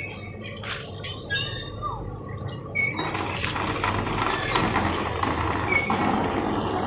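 Chickpea gravy simmering in a nonstick pot over a low flame: a steady hiss that grows louder about three seconds in. A wooden spatula stirs and knocks lightly against the pot in the first second or two.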